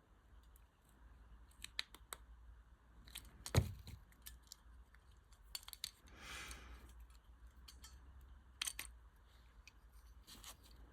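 Faint scattered clicks and taps of small plastic key-fob parts and a tiny wire spring being handled, with one sharper click about three and a half seconds in.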